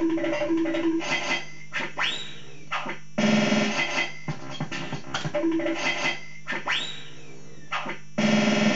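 Impulse Hurricane fruit machine playing its electronic sound effects: a looping synth jingle of bleeps with a rising sweep, repeating about every five seconds, with a louder burst after each sweep.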